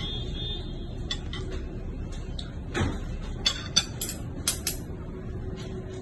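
Metal fork and spoon clinking and scraping against a ceramic plate while eating: a handful of irregular sharp clinks over a steady low hum.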